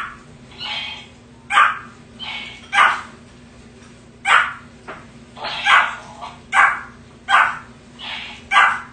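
Pomeranian puppy barking in short, sharp yaps, about one a second. Softer, higher calls follow some of the barks, which a plush talking-parrot toy gives as it repeats the barks back.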